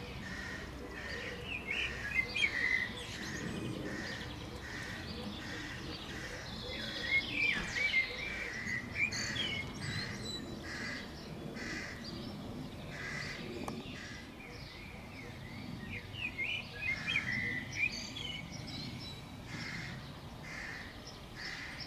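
Songbirds singing and chirping in several bursts of quick, high chirps and trills. A faint low background rumble runs beneath them.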